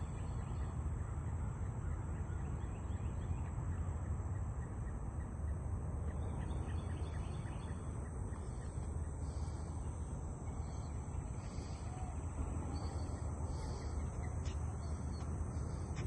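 Faint bird calls, a few scattered chirps, mostly in the second half, over a steady low rumble.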